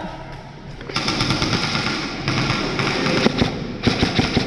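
Airsoft guns firing in rapid full-auto strings of sharp clicks, starting about a second in.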